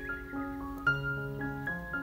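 Background piano music: a gentle melody of single notes and chords changing a few times a second.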